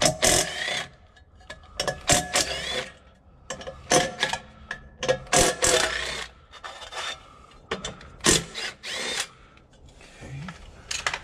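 Cordless driver run in several short bursts, each under a second and a second or two apart, spinning the nuts off the hub of the Onan Quiet Diesel generator's aluminium squirrel-cage blower fan, with metal clinks between the bursts.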